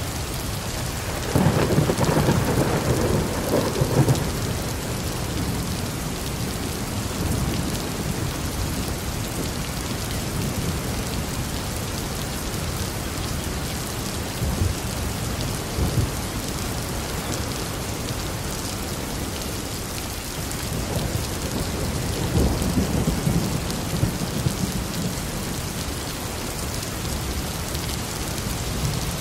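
Steady rain with thunder. A loud clap of thunder comes about a second and a half in and rumbles for a few seconds. A weaker roll of thunder rumbles about two thirds of the way through.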